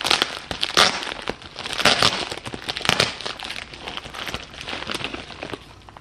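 Paper mailer bag crinkling and rustling as it is handled and opened, in a few loud bursts over the first three seconds, then lighter rustles toward the end.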